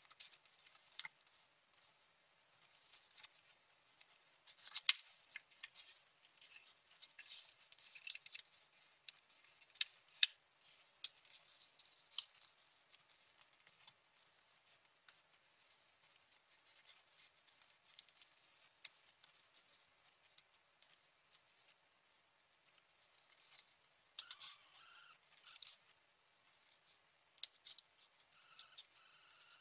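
Origami paper being folded and creased by hand: faint, scattered crinkles and small crackles of the paper.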